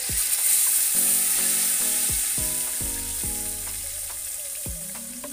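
Green ground masala paste poured into hot oil in an aluminium pot, sizzling loudly as it goes in and then settling into a steady fry that slowly quietens.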